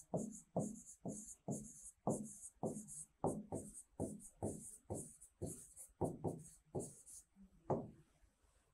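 A pen writing on a whiteboard surface: a quick run of short scratchy strokes, about three a second, stopping about seven seconds in with one last stroke near the end.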